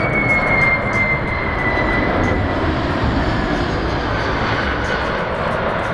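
McDonnell Douglas MD-11 freighter passing low overhead on landing approach, its three turbofan engines giving a steady jet roar with a high fan whine that slowly falls in pitch.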